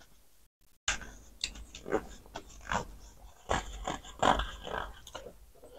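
Hands being wiped with a paper towel: a run of irregular rustling swishes that starts about a second in.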